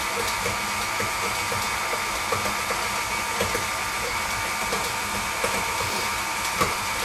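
KitchenAid Artisan stand mixer's motor running steadily, its scraper-edged beater mixing melted butter and brown sugar in a glass bowl, with faint irregular ticks over the hum.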